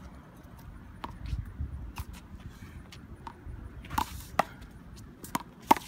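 Sharp smacks of a rubber handball: struck by gloved hands and bouncing off the wall and the concrete court, a handful of separate hits coming quicker and louder near the end.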